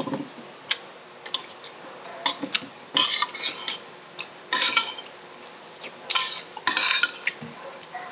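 Cutlery clinking and scraping against a dish in short irregular bursts, with sharp clicks between them, as a balut egg is eaten.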